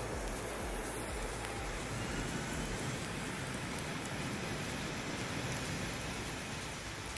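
A small bit of potassium nitrate and sugar rocket fuel coated in gloss car paint burns with a steady, even noise, holding a stable burn throughout.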